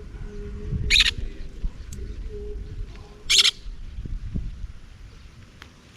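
A parrot gives two short, harsh squawks, about a second in and again around three and a half seconds, over a low rumble of wind or handling noise.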